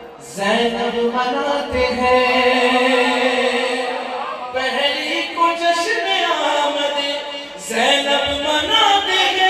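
A man singing a devotional Urdu poem (manqabat) into a microphone, in three long phrases of held, ornamented notes.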